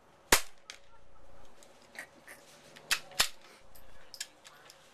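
A gunshot from a Savage Mark II .22 LR bolt-action rifle about a third of a second in, the loudest sound. About two and a half seconds later come two more sharp shots, a third of a second apart, then a few faint clicks.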